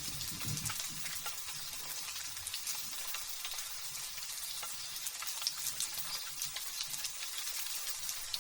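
Light drizzle falling steadily, a dense hiss of fine raindrops with scattered sharper drop ticks. The tail of a low thunder rumble dies away about a second in.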